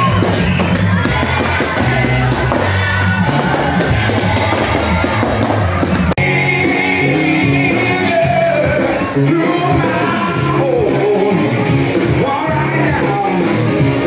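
Loud party music with singing, played to a crowd in a large marquee, with occasional shouts from the crowd. The sound breaks off sharply about six seconds in and jumps again near nine seconds.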